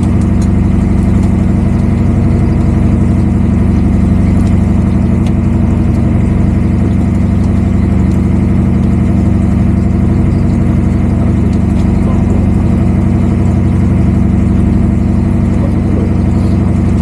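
Steady, loud drone of an engine running at constant speed aboard a fishing boat, a low hum that holds unchanged throughout.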